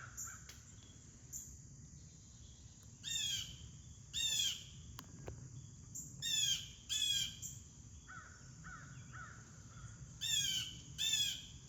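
Blue jay giving loud, harsh calls in pairs, three pairs in all, with a steady high insect drone underneath.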